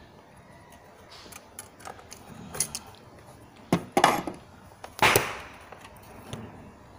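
Light metallic clicks of long-nose pliers bending a steel wire, then sharp cracks about four and five seconds in, the last and loudest with a trailing echo: firecrackers going off in the background.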